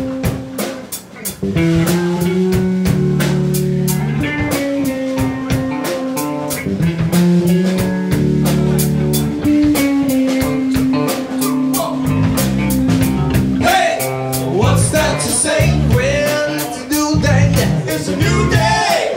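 A live rock band plays with electric guitars, electric bass, a keyboard and a drum kit on a steady beat. A man's voice sings into the microphone over it in the second half.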